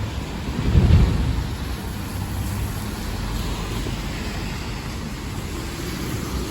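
Steady rain with street traffic noise, and a low rumble that swells and fades about a second in, from a vehicle passing.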